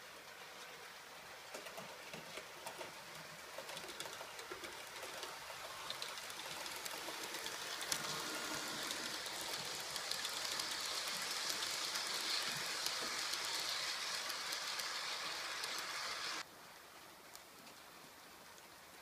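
H0-scale model train, a model NSB Di 3 diesel hauling passenger coaches, running along the track with a rolling hiss and wheel clicks. It grows louder as the coaches pass close by, then cuts off suddenly near the end.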